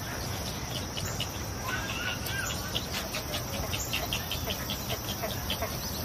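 A flock of birds calling all at once, many short chirps and a few rising-and-falling calls over a steady hiss of background noise.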